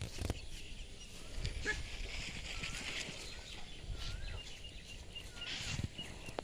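Faint outdoor ambience in which a bird repeats a short wavy whistled call every second or so. Soft low thumps sound now and then.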